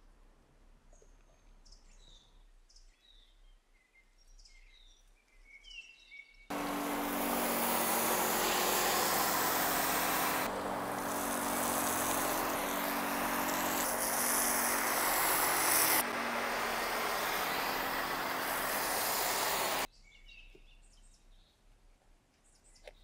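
Pressure washer spraying snow foam through a foam cannon: a loud steady hiss over the pump's hum, starting about six seconds in and cutting off suddenly about twenty seconds in. Before and after it, quiet with birds chirping.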